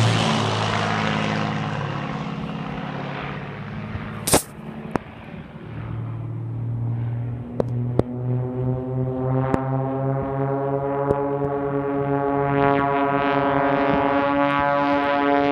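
Propeller engine of an aerobatic display plane droning as it passes, its pitch falling as it moves away and fading. A sharp click comes about four seconds in, then the engine drone builds again and holds a steady note.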